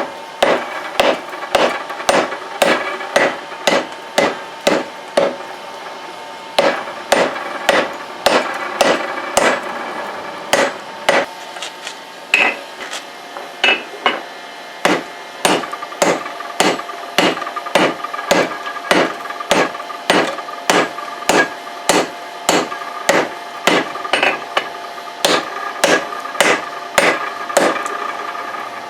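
Blacksmith's hammer striking hot leaf-spring steel on an anvil, about two blows a second, with the anvil ringing between blows, as the steel is flattened and stretched. There is a short pause about six seconds in.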